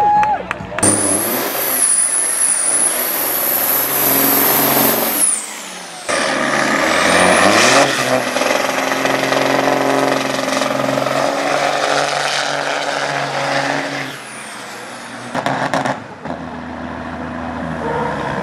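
Turbocharged diesel semi trucks, a Kenworth among them, doing burnouts one after another: engines revving hard under load while the drive tyres spin. A high whistle rides over the engine for the first few seconds, and the revs climb again after a cut about six seconds in.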